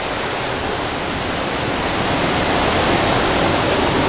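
Steady hiss of heavy hurricane rain and wind, a little louder about two seconds in.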